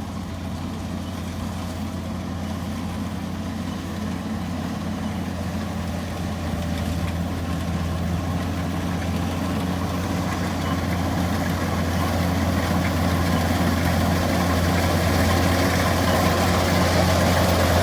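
Rice combine harvester's engine running steadily, growing gradually louder as the machine comes closer.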